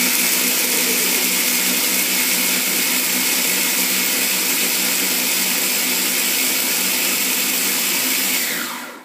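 Small electric food processor running steadily at full speed, chopping granola bars to crumbs; the motor winds down and stops near the end.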